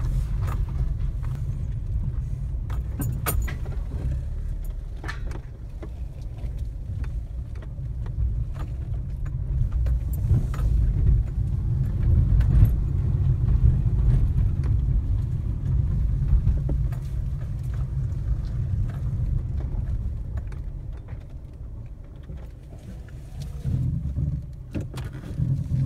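A car driving slowly over a gravel lane and a concrete driveway, heard from inside the cabin: a steady low rumble of engine and tyres, with scattered small clicks and rattles.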